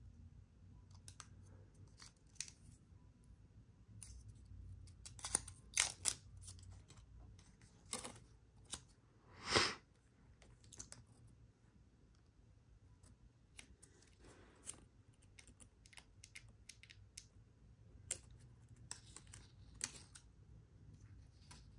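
Hands handling an Apple Watch Ultra's packaging: scattered clicks, taps and short rustles, busiest in the first half, with the loudest a half-second swish or tear about nine and a half seconds in.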